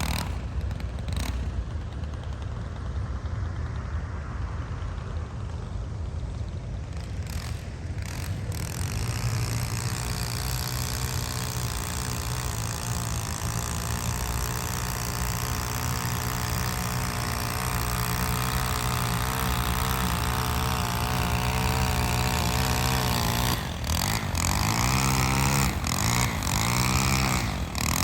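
Small engine of lawn equipment running steadily, its hum settling in about nine seconds in. Near the end its tone sweeps up and down a few times, as if the machine is moving about.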